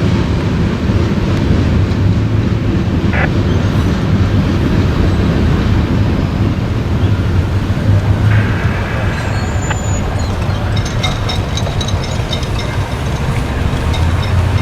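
Steady low hum of a running engine under a noisy rumble, with a few light clicks in the second half.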